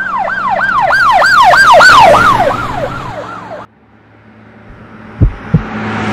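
Emergency vehicle siren in a fast yelp, about three sweeps a second, passing by: it swells, then drops in pitch and fades, and cuts off abruptly a little past halfway. A rising whoosh follows, with two deep thuds near the end.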